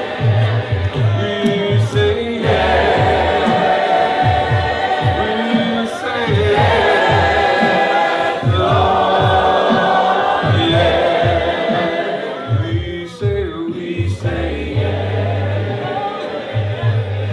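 Gospel choir and congregation singing a slow worship song in long, held notes.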